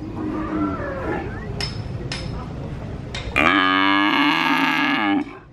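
A calf moos once, long and loud, in the second half, its pitch sliding down as the call ends. Before it, two short metallic clinks sound over a faint background murmur.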